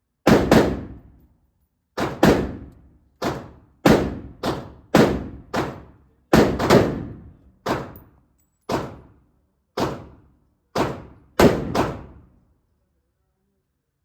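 Gunshots from a handgun, about twenty sharp reports in uneven strings with short pauses between, during a malfunction drill in which spent casings mixed into the magazine force the shooter to clear jams and keep firing.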